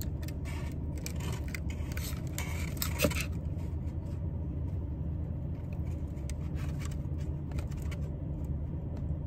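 Cardboard takeout boxes and paper liners rustling and clicking as they are lifted and shifted during the first three seconds, with one sharper click about three seconds in. Under it runs the steady low rumble of a car cabin.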